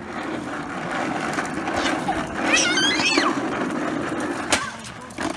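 Hard plastic wheels of a toddler's ride-on toy rolling over a concrete driveway, a steady rumble, with a brief high squeal about halfway and a single sharp knock near the end.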